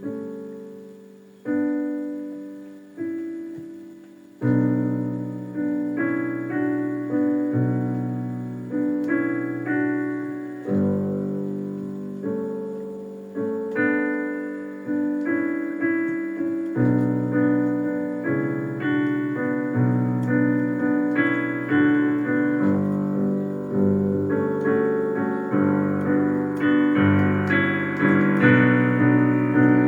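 Keyboard playing chords, each struck and left to ring and fade. The chords come about every second and a half at first, then more often, building in loudness toward the end.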